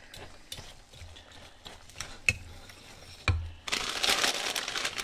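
A metal whisk stirring white sauce and spinach in a small stainless steel saucepan, clicking and scraping against the pan. About three and a half seconds in, a plastic bag of spinach crinkles loudly and keeps crinkling.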